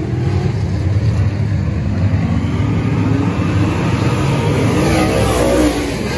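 Race car engines running at speed around the track, a loud steady rumble. One car swells to a peak about five seconds in as it passes, then the sound drops off sharply.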